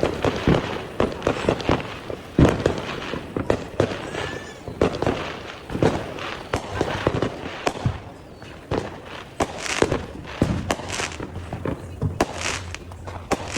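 Fireworks going off: many sharp bangs and crackles at an irregular pace.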